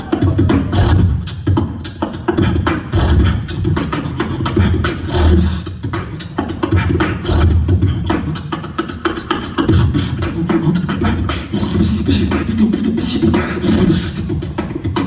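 Live human beatboxing: a continuous rhythmic pattern of mouth-made kick-drum thumps and snare and hi-hat clicks over a low bass line, heard in a large hall.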